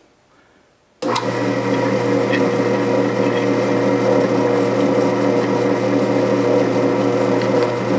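Drill press motor switched on about a second in, then running steadily as the resharpened drill bit is fed down into 1/8-inch steel plate.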